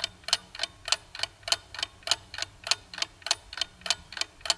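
Ticking clock sound effect, sharp even ticks about three times a second, timing the pause for answering a quiz question.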